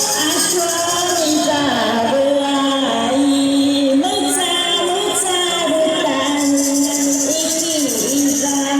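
Dance music played loud, with a sung melody of held, sliding notes over a high, rattling percussion.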